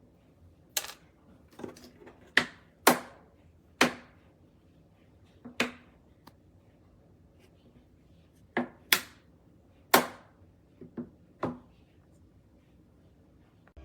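Sharp plastic clacks and knocks from a loaded plastic rolling tool box being handled, about fourteen irregular hits over the stretch, some in quick pairs.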